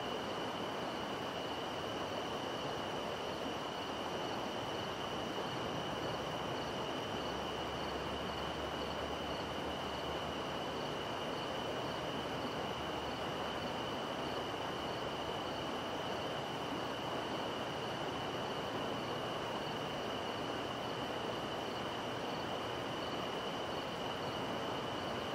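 Night-time insect chorus: a steady high-pitched insect trill with fainter, evenly pulsing chirps above it, over the even rushing of a distant river.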